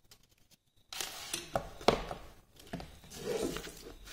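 Rustling and scraping of bundled switch wires being handled and dragged across a sheet of paper on a tabletop, starting about a second in, with a few sharp clicks, the loudest near the middle.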